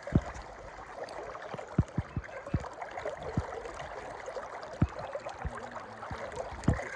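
River water running and lapping, a steady gurgling wash, with about eight short, dull low thumps scattered through it.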